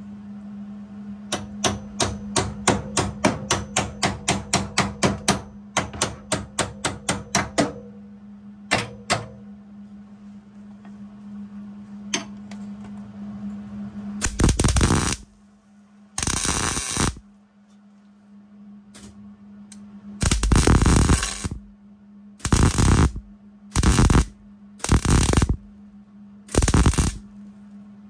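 A hammer striking steel on a car's rear subframe in a fast run of about four blows a second for some six seconds, then a few single strikes. Then a wire-feed welder tack-welding steel onto the subframe in seven short bursts, each half a second to a second and a half long.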